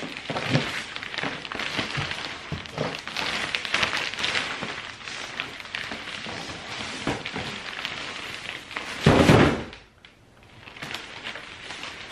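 Gift wrap rustling and crinkling as a present is being wrapped, with a loud thump about nine seconds in.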